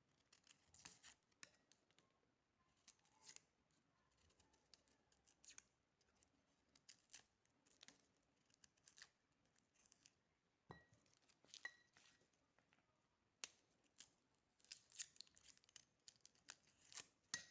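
Hands peeling and handling garlic cloves: faint, scattered clicks and papery crackles.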